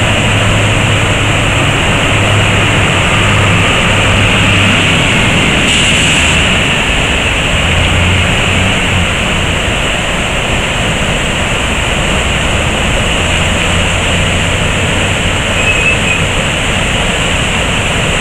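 River in heavy flood rushing and churning through a bridge arch: a loud, steady rush of turbulent water.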